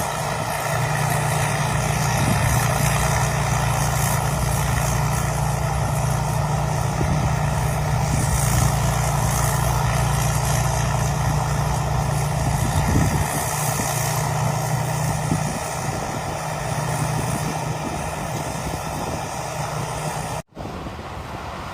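New rice combine harvester running steadily, its engine hum and the rushing noise of its machinery together. The deep engine hum weakens about halfway through. Near the end the sound drops out for an instant and comes back a little quieter.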